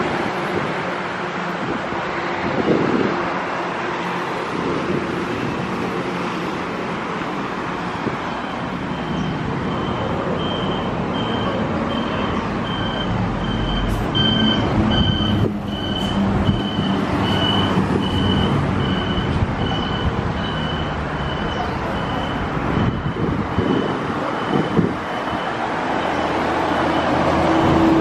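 Road traffic on a multi-lane city road: a steady rush of passing cars. Through the middle and later part a high beep repeats a little faster than once a second.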